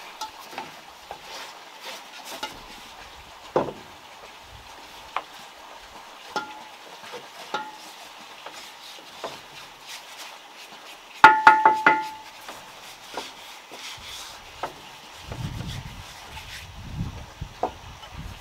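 Paintbrushes working over a wooden railing, with scattered small knocks and scrapes. Just past the middle, a metal paint bowl is struck several times in quick succession and rings, as a brush is tapped against its rim.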